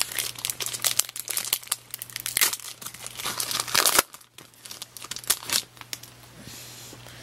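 Foil wrapper of a baseball card pack being torn open and crumpled by hand: dense crackling for about four seconds, then a few scattered crinkles that die away.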